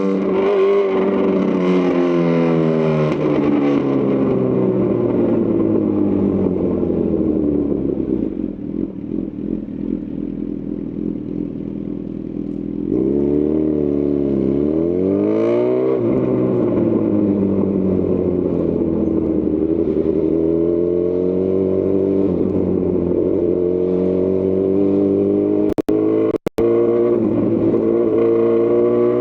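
A 2018 Honda CB1000R's inline-four through a Lextek CP1 full exhaust, heard from the riding position. The engine note falls as the bike slows and runs lower and quieter for a few seconds. About halfway through it climbs steeply under acceleration, then rises and falls with the ride, with two brief cuts in the sound near the end.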